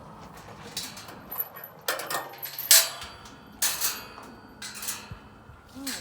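A farm animals' water bucket being handled for cleaning: a series of irregular knocks and scrapes, about half a dozen, the loudest a little under three seconds in.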